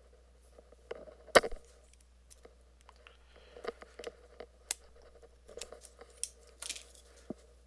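Scissor blades picking and scraping at the hard wax seal on a hot sauce bottle's cap: a run of irregular sharp clicks and short scratches, the loudest about a second and a half in.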